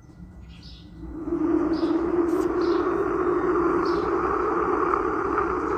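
Outdoor ambience sound effect: a steady rushing background noise that swells up about a second in, with a few short, high bird chirps over it.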